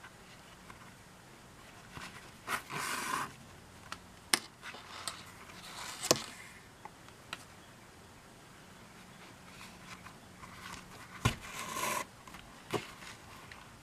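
Hand saddle stitching of chrome-tanned leather: the thread is drawn through the stitching holes in two scratchy pulls, each under a second, about two and a half seconds in and again near the end. Sharp clicks and ticks come between the pulls.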